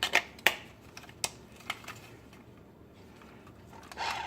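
Sharp plastic clicks of batteries being fitted into a toy RC car's remote control and its battery compartment handled, several in the first second and a half, then quieter. A steadier, louder sound starts near the end.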